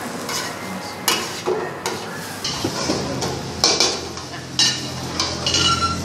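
Spatula scraping and tossing rice noodles in a hot wok while they sizzle, with repeated scrapes at an uneven pace: Pad Thai being stir-fried over a gas burner.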